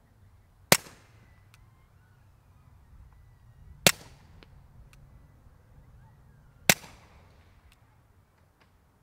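Three suppressed .22 LR shots, about three seconds apart, from a Smith & Wesson M&P 22 Compact pistol fitted with a TBA Peacemaker rimfire suppressor, firing CCI Standard Velocity ammunition. Each is a sharp crack with a short fading tail, metering at about 116 to 122 dB.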